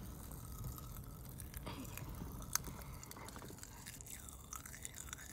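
Close-up chewing and crunching of a candy that turns into gum, with small mouth clicks, faint over a steady low rumble.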